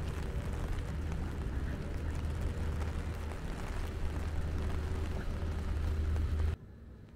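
Rain falling on an open umbrella over a steady low rumble. The sound cuts off suddenly near the end.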